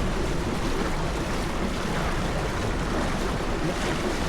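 Steady wind rushing over the microphone with water washing along the hull of a small racing sailboat under way.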